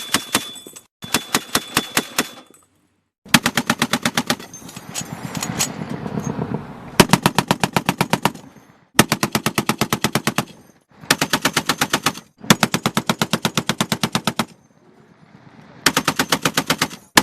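Automatic gunfire sound effects: about seven bursts of rapid shots, roughly eight to ten a second, with short pauses between bursts and a longer pause shortly before the last burst.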